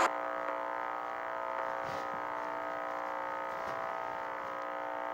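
Steady electrical buzz in a VHS tape's playback audio over the blank black stretch before the programme, a stack of even tones with no music or speech.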